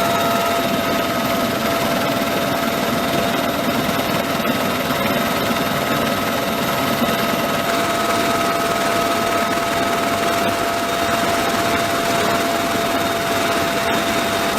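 Helicopter running steadily, its turbine whine holding several fixed pitches over a constant rotor and engine noise.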